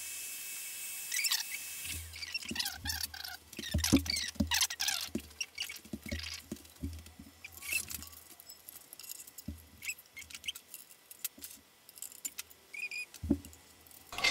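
Hands working a wire into place inside a metal tube-amp chassis: irregular small clicks, taps and rustles, with a few short squeaks in the first few seconds.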